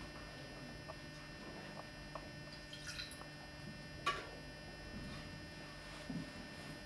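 A small glass cruet and a silver chalice handled, with a few light clinks, the sharpest about four seconds in, and a faint pour of wine into the chalice, over a steady electrical hum.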